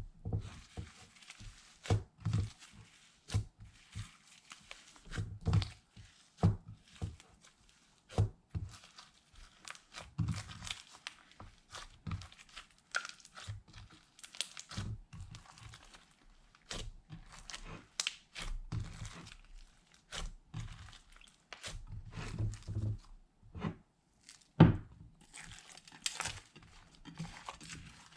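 Slime with makeup glitter being mixed in, worked and stretched by hand: irregular sticky clicks and crackles with soft thumps, one louder thump near the end.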